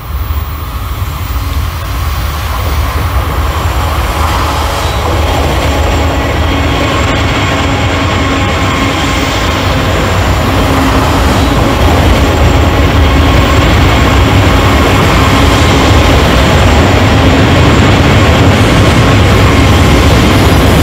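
Diesel freight train sound from an HO scale model train: a steady low engine rumble with faint whining tones above it. It grows louder over the first few seconds, then holds steady.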